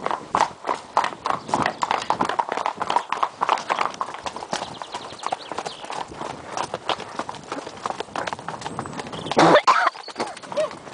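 Several horses' hooves clopping on a paved lane in a dense, uneven rhythm. After a few seconds the hoofbeats grow sparser and softer as the horses move onto a dirt path. A brief louder noise comes about nine and a half seconds in.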